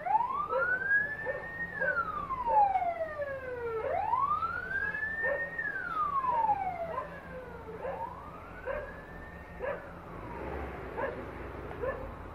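Emergency vehicle siren wailing in slow cycles, each rising for about two seconds and falling for two, three times over; the last cycle is fainter. A dog barks repeatedly alongside.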